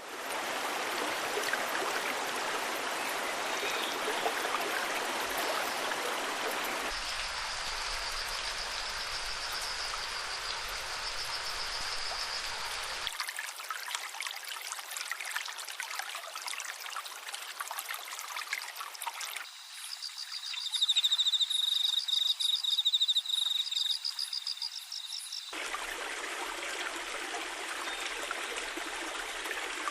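Waterfall and stream water rushing steadily, its sound changing abruptly several times. A high, rapidly pulsing trill joins it for a few seconds at a time, twice.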